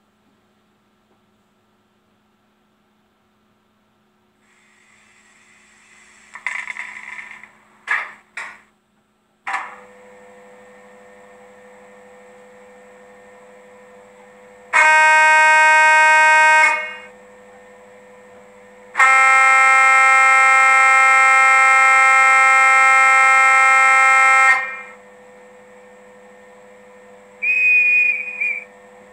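A steady horn sounding twice: a blast of about two seconds, then a longer one of about five seconds, over a faint steady hum, typical of a train horn at a railway station.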